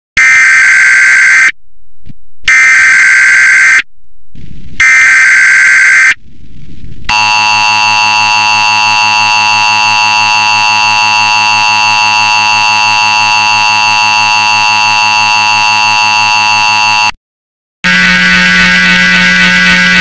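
Emergency Alert System tones: three loud bursts of warbling data tones (the SAME header), then a long steady, harsh alert tone lasting about ten seconds that cuts off suddenly. After a short break, a steady low buzzing tone starts near the end.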